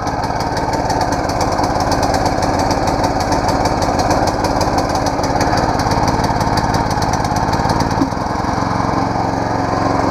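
Brand-new Harbor Freight Predator 212 single-cylinder four-stroke engine running smoothly on its very first start, choke on and throttle about a third open. Its tone and level settle slightly lower about eight seconds in.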